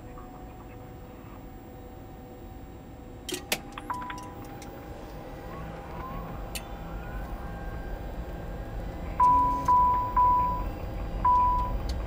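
Cockpit electrical systems coming online as the APU reaches full speed and its generator takes the load: a cluster of relay clicks about three seconds in, then a steady hum that grows stronger. Near the end, four loud, short, high beeps from the cockpit warning system as the avionics power up.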